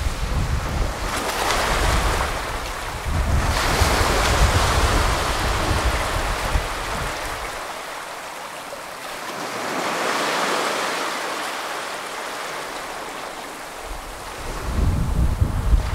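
Small sea waves breaking and washing up a flat sandy shore, several slow hissing surges that swell and fade. Wind rumbles on the microphone through the first half and again near the end.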